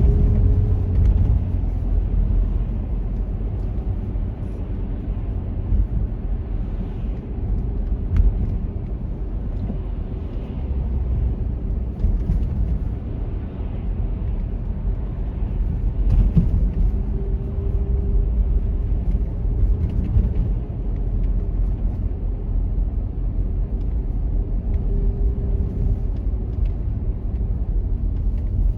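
Car driving on city roads: a steady low rumble of engine and tyres, with a faint hum that fades in and out and two light bumps, about 8 and 16 seconds in.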